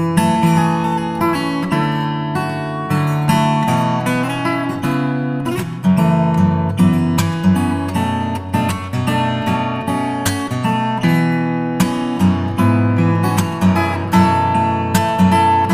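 Background music: acoustic guitar strummed and picked, the notes changing steadily.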